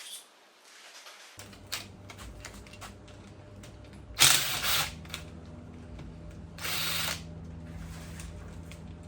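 Cordless power drill/driver run in two short bursts, undoing engine fasteners, amid light clicks of tools on metal parts. A steady low hum sets in about a second and a half in and runs underneath.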